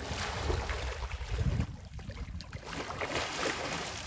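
Water splashing and churning as a dolphin feeds in the shallows, driving fish to the surface, over a low rumble of wind on the microphone.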